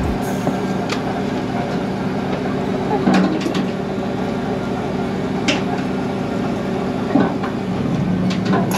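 Steady drone of a commercial prawn boat's engine and deck machinery, with a few sharp knocks and clatters as crewmen handle wire-mesh prawn traps on deck.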